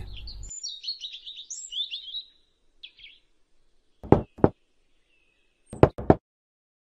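Birds chirping, then someone knocking twice on a wooden door, then twice more about a second and a half later.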